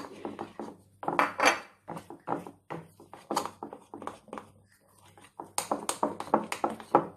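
A metal utensil stirring thick cake batter in a glass bowl, knocking and scraping against the glass in irregular clinks, with a short lull about four seconds in. The flour is being worked into the batter by hand.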